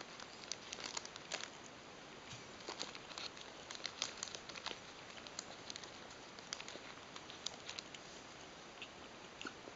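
Paper wrapper crinkling and a plastic fork clicking as a steamed meat bun is pulled apart by hand: a scatter of small, faint ticks and rustles, busiest in the first half and thinning out later.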